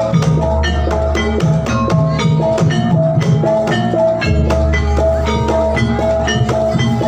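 Javanese gamelan music for a jathilan horse dance played loud through a sound system: a busy run of struck pitched notes over drum strokes and a deep bass, which drops out briefly about halfway through.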